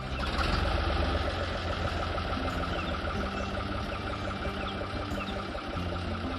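Engine of a 1982 Fiat 480-8 tractor idling steadily. It gets louder for about a second shortly after the start, then settles back to an even idle.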